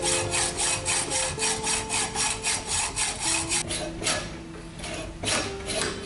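Hacksaw sawing through a metal tube clamped in a bench vise, in quick even strokes of about three a second, with a short break about four seconds in.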